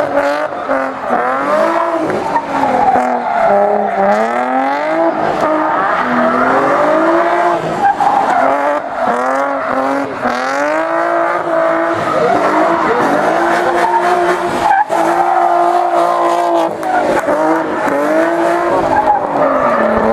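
Nissan 350Z drift car's engine revving hard, its pitch climbing and dropping again and again as the throttle is worked through the slides, with the rear tyres spinning and squealing on the asphalt.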